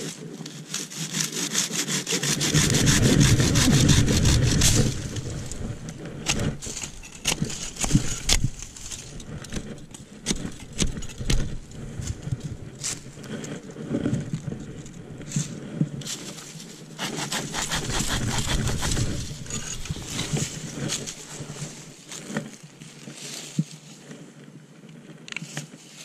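Curved-blade folding hand saw cutting through a thin sapling in quick back-and-forth strokes, loudest a couple of seconds in, with a second spell of sawing about two-thirds of the way through. Scattered sharp clicks and rustles come between the two spells.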